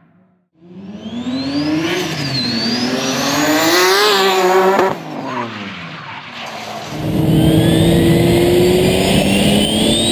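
A drift car's engine revving hard, climbing twice to high revs and then falling away, with tyre squeal as it slides. About seven seconds in it cuts to another car's engine pulling steadily under acceleration, with a high whine rising over it.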